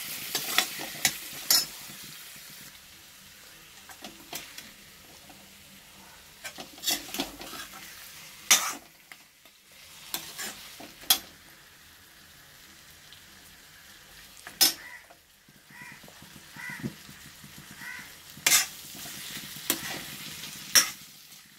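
Chicken masala frying in oil in a kadai with a faint sizzle, stirred with a metal spatula that scrapes and clacks against the pan every few seconds. The clacks are the loudest sounds.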